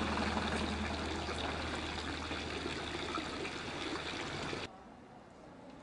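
A thin fountain jet splashing steadily into the water of a stone basin. The splashing cuts off suddenly a little before the end, leaving quieter street background.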